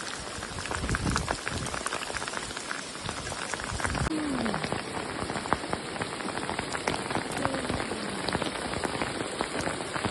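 Heavy rain falling steadily, with many separate drops ticking on hard surfaces during a thunderstorm.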